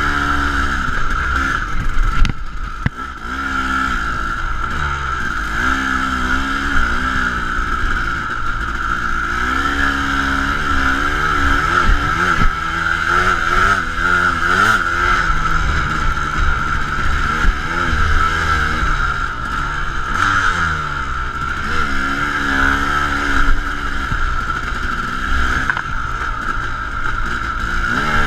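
KTM 250 dirt bike engine under riding load, revving up and down with the throttle, easing off briefly about two to three seconds in. A steady low rumble of wind on the microphone runs under it.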